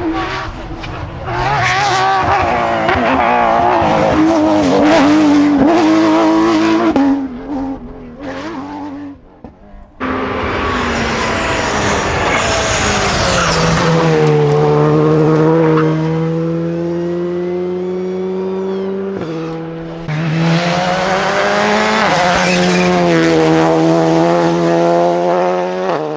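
Rally cars at full racing speed, their engines revving up and down through gear changes and fading away. After a cut, an engine note sweeps down in pitch, holds steady with brief shifts, and grows loud again about two thirds of the way in.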